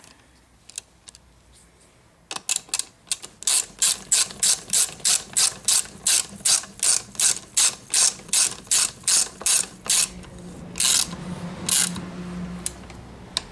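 Ratchet wrench clicking as it runs a bolt into a gaming chair's seat side bracket. The clicks start about two seconds in, run at about four a second, and thin out near the end.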